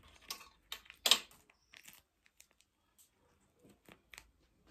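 Brief crinkling and rustling with small clicks from handling at the table, the loudest a short crackling burst about a second in, then a few faint ticks.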